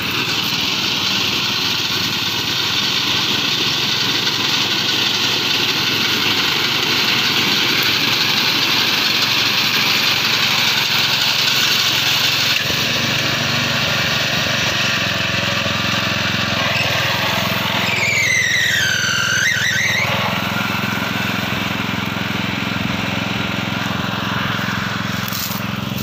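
Greaves Cotton engine of a self-propelled walk-behind reaper running steadily under load while the machine cuts standing wheat.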